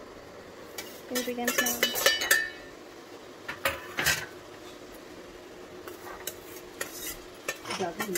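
Stainless-steel bowls clinking and tapping against a steel plate as dry ingredients are tipped out and mixed together: irregular light clinks and scrapes, busiest about one to two and a half seconds in.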